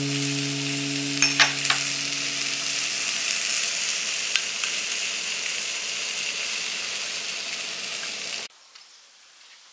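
Food frying in a hot pan, a steady sizzle with a few small pops, cutting off suddenly near the end.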